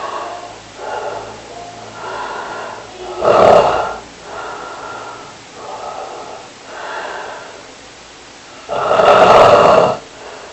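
Snoring: two loud snores about six seconds apart, a few seconds in and again near the end, with softer breaths between them.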